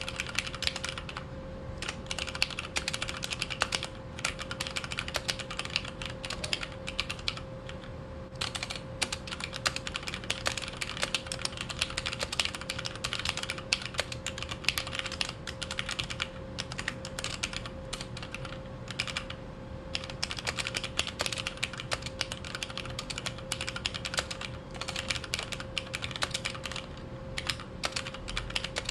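Fast, continuous typing on a Xiaomi MK02 Pro mechanical keyboard with Cherry MX Red linear switches, keys clacking as they bottom out, with a few short pauses. A faint steady hum sits underneath.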